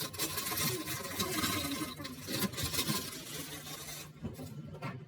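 A steady hiss of kitchen noise that cuts off about four seconds in, followed by a few light clicks.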